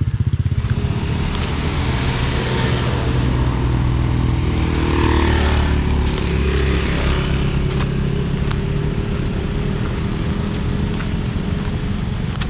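Motor vehicle engines running close by on a road, with one vehicle passing and loudest about halfway through.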